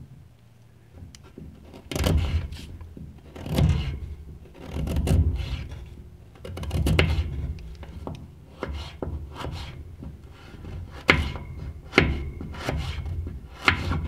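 A freshly sharpened Hammer Brand stockman pocket knife slicing a radish on a wooden board. A few slow, heavy cuts through the radish come first, then quicker, sharper taps of the blade on the board, about one a second, near the end.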